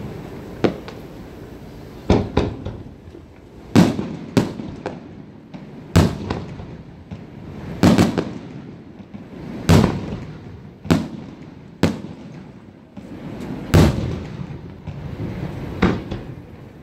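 Aerial fireworks shells bursting: about a dozen loud booms, one every second or two, each trailing off in a rumbling echo.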